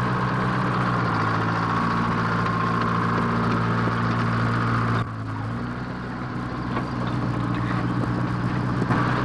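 Bulldozer engine running steadily, with a low, even hum. It drops briefly in level and shifts pitch about five seconds in, then carries on.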